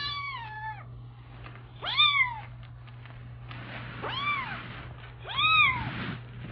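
Kitten meowing: four short high-pitched meows, each rising then falling in pitch, spaced one to two seconds apart, over a steady low hum.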